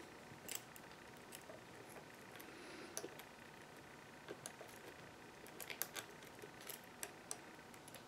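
Faint, scattered clicks and light metallic ticks of a lock pick and tension wrench working the pin stack in the keyway of a solid brass American Lock 5530 padlock. The clicks come irregularly, a few closer together past the middle.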